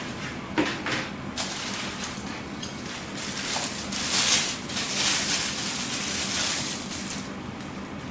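A couple of light knocks about a second in, then a thin clear plastic bag crinkling loudly for several seconds as hands unwrap a pair of camera sunglasses from it.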